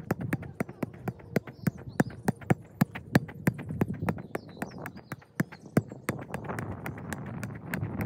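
A football being juggled, kicked up repeatedly off the foot: a steady run of hollow ball thumps, about three touches a second.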